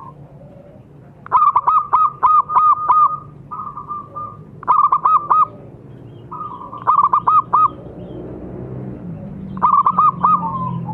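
Zebra doves (perkutut) cooing: five bursts of quick, repeated coo notes with short pauses between.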